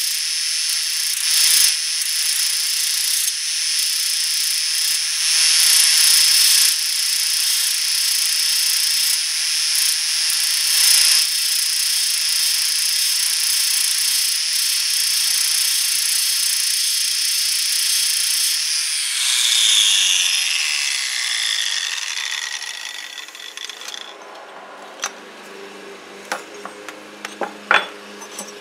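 A rotary power tool running with a loud, high-pitched grinding hiss. About nineteen seconds in it is switched off and its pitch falls as it spins down, leaving a lower steady hum and a few light clicks near the end.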